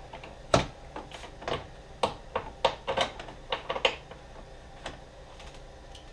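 Irregular metal clicks and knocks as a new BMW E53 X5 lower tailgate spring assembly and its bolts are handled and fitted into place. One loud knock comes about half a second in, then a quick cluster of clicks between two and four seconds.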